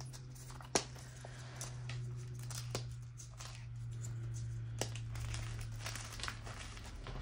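Gym chalk crunching and crumbling as hands squeeze and break up clumps in a heap of powder, with scattered crisp crackles, the loudest about a second in. A steady low hum runs underneath.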